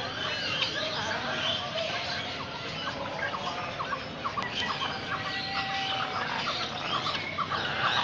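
A chorus of many caged birds chirping and calling over one another in a dense stream of short chirps, with one held whistled note about five seconds in.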